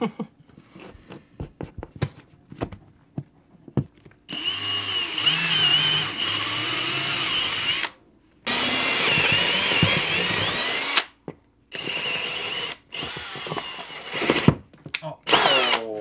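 Red Milwaukee cordless drill driving a screw to mount a range receptacle to the wall, running in four bursts, the first two about three seconds long, after a few light handling clicks. The screw is being driven into the range cable behind the receptacle.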